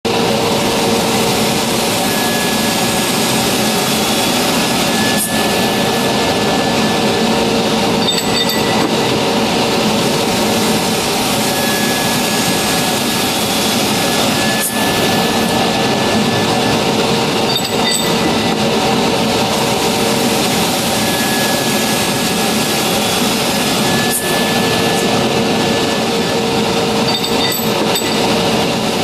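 Kentai KTC-150NF high-speed carbide-tipped circular saw cutting a 150 mm aluminium round bar: a loud, steady machining noise with a high whine that comes and goes, and a few short clicks along the way.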